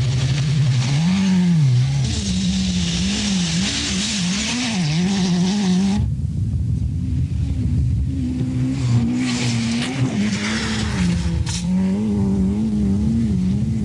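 Rally car engine revving up and down as the car slides on loose dirt, with a hiss of gravel and tyres. The sound changes abruptly about six seconds in, to another rally car's engine rising and falling.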